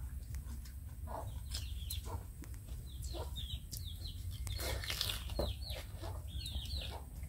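Chickens calling: short, high, falling peeps repeated in quick runs of two or three.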